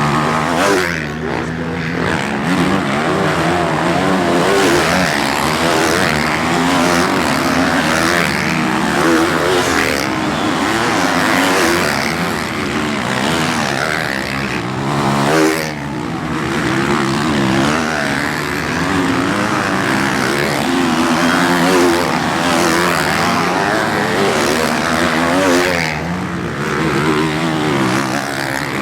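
Motocross bike engine revving hard, its pitch climbing and falling over and over with throttle and gear changes, and dropping off briefly about a second in, about halfway through and near the end.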